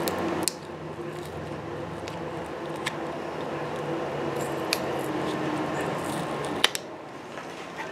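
Flathead screwdriver scraping and prying at the plastic cover of a golf ball along a sawn groove, with a few sharp clicks as the shell is levered loose; the loudest click comes near the end.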